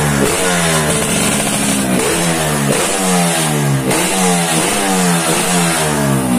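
Yamaha RX-King two-stroke single-cylinder motorcycle engine heard through a YKJ aftermarket exhaust, revved in repeated throttle blips. The revs jump up and fall away again about once a second.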